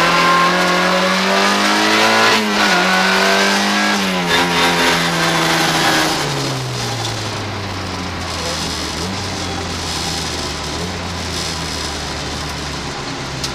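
Rally car engine heard from inside the cabin, revving hard under full throttle with quick upshifts about two and four seconds in. Around six seconds in the throttle comes off and the engine note falls to a low, steady run as the car slows.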